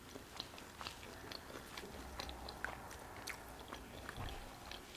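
Close-miked chewing: faint, wet mouth clicks and smacks as a person chews a mouthful of food.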